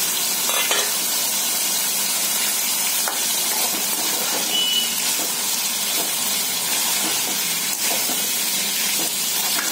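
Boiled chickpeas and grated coconut sizzling steadily in hot oil in a kadai, with an occasional scrape of a slotted steel spoon as they are stirred.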